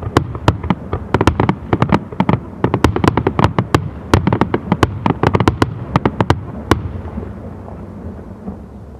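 Fireworks display heard from a distance: a rapid volley of sharp firework bursts and cracks, each trailed by echoing rumble. The bangs stop about seven seconds in, leaving a fading rumble.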